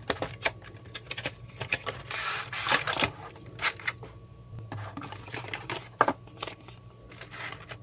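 Unboxing noises: a cardboard box being opened and a plastic clamshell tray and paper manual handled, a run of rustles, scrapes and sharp clicks. The sharpest clicks come just after the start and about six seconds in.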